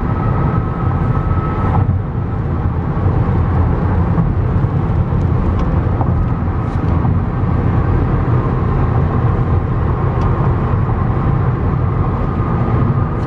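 Steady road noise inside a car's cabin while driving at freeway speed: a low, even rumble of tyres and engine.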